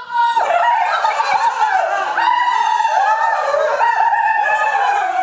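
High-pitched wordless vocalizing: a falsetto voice sliding up and down in short phrases.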